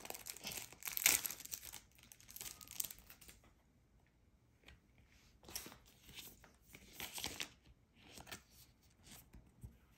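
Thin plastic wrapper on a sealed Pokémon promo card being torn open and crinkled by hand. The rustling comes in irregular bursts, loudest in the first three seconds, then goes quiet for a moment before a few softer crinkles.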